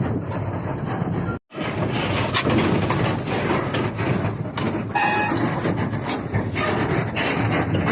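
Hyundai 210 excavator running, with repeated metallic clanks and knocks over a steady engine drone. The sound drops out completely for a moment about one and a half seconds in.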